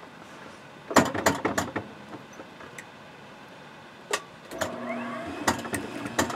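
Industrial sewing machine stitching: a quick run of sharp needle clicks about a second in, then a single click, and from near the end the motor hums with a few more clicks.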